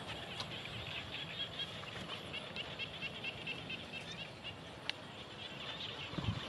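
Outdoor field ambience of birds chirping, with many quick, repeated high chirps. A single sharp click comes about five seconds in.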